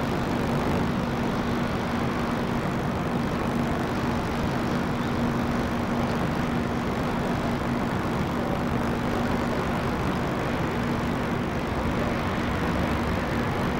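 Steady low mechanical hum with one constant tone over a rumbling wash of noise, unchanging throughout.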